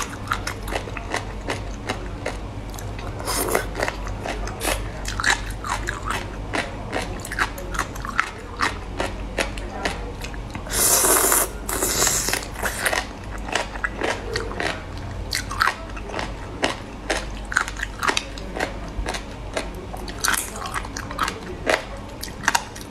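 Close-miked chewing and biting of chewy, gelatinous food strips, with many short wet clicks and crunches. About eleven seconds in there is a louder rushing noise lasting about two seconds. A steady low hum runs underneath.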